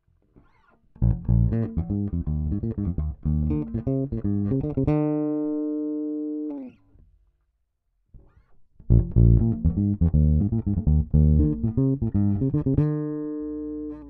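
Yamaha RBX270J electric bass played in two short phrases of quick plucked notes. Each phrase ends on a held note that rings for a second or two and is then muted.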